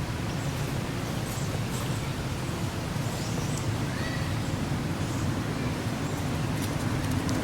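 Steady outdoor background rumble and hiss, with a few faint, short high-pitched chirps or squeaks, one a brief rising-then-falling call about four seconds in.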